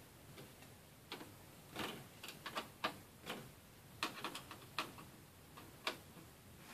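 Small screwdriver fastening the CPU heatsink screws on a laptop motherboard: faint, irregular light clicks and taps of metal on metal, about a dozen, starting about a second in.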